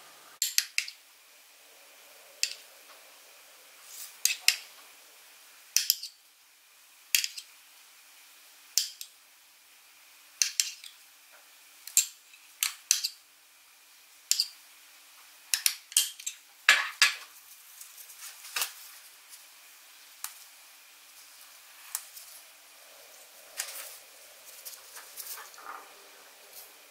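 Metal spoon clinking against a ceramic bowl and plate as spoonfuls of curd are scooped and dropped, about one sharp tap every second and a half, some in quick pairs. The taps grow fainter in the last several seconds.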